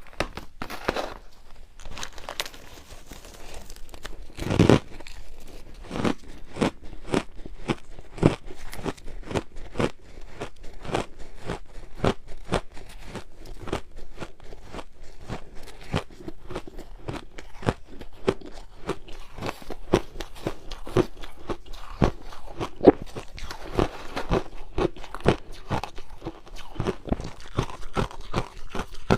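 Purple ice being bitten and chewed close to the microphone: a steady stream of irregular crunches and sharp cracks, several a second, with a few louder cracks along the way.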